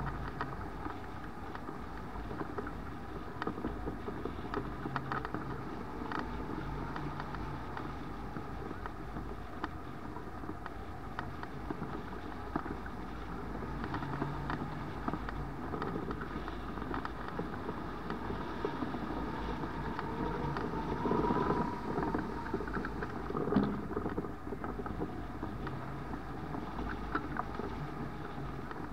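Steady rush of airflow over a hang glider in flight, the wind buffeting the glider-mounted camera's microphone, with a couple of louder gusts about two-thirds of the way through.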